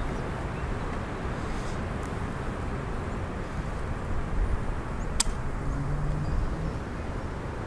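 Strong wind buffeting the microphone in a steady low rumble, with a single sharp crack a little over five seconds in: a shot from an Umarex Gauntlet 2 .22 PCP air rifle.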